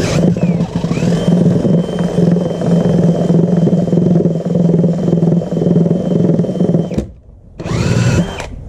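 Power drill turning an auger bit, boring down through deck boards to work a hole larger. The motor runs at a steady pitch, stops about seven seconds in, then briefly spins back up with a rising whine.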